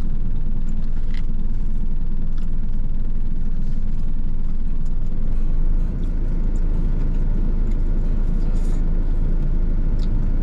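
Parked truck's engine idling, a steady low rumble heard from inside the cab, with a few faint clicks of chopsticks against a plastic food container.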